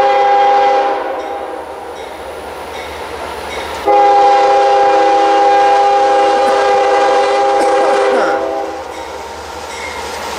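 CSX freight locomotive's air horn sounding a chord of several notes as the train approaches: one blast that fades about a second in, then a long blast from about four seconds in until near the end. A low rumble from the train runs underneath.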